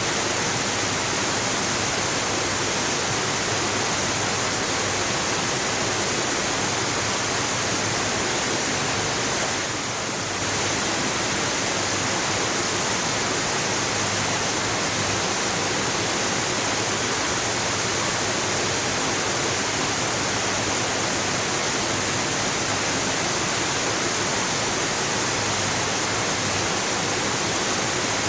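Waterfall: a steady, dense rush of falling water, easing off slightly for a moment about ten seconds in.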